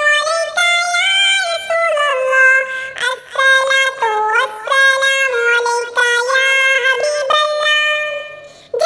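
High-pitched synthetic, AI-generated singing voice performing a naat, unaccompanied, with long held and bending notes. The voice fades shortly before the end.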